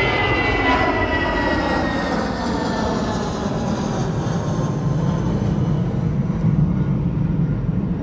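Jet airliner passing overhead and climbing away. Its engine whine sinks in pitch and fades over the first few seconds, leaving a steady low rumble.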